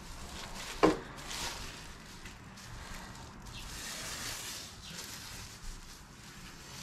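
Thin plastic sheeting rustling and crinkling as it is handled and split into two halves, with one short, sharp pitched sound about a second in.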